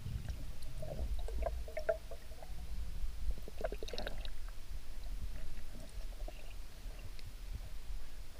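Muffled water sound from a spearfisher's diving camera: a steady low rumble with scattered clicks and gurgles, busiest about a second in and again around four seconds.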